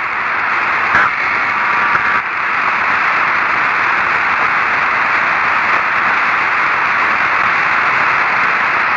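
Steady radio static hiss on an open air-to-ground communication channel with no voice on it, typical of a weak or intermittent signal from the orbiting shuttle. Faint tones sound briefly about a second in.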